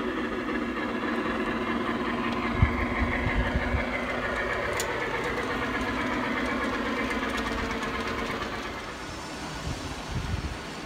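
G-scale model steam locomotive hauling log cars along the track, running with a steady mechanical hum that eases off near the end, with a few low bumps about three seconds in and again near the end.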